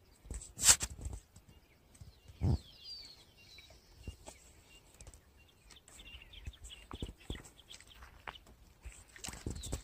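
A sharp burst about a second in and a dull thump a couple of seconds later, then scattered light clicks on the stony bank, with faint high bird chirps.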